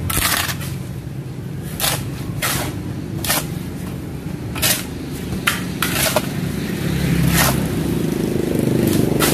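Mortar being mixed by hand with a metal tool: short, sharp scraping strokes through the wet mix at uneven intervals, roughly one a second, over a low steady hum.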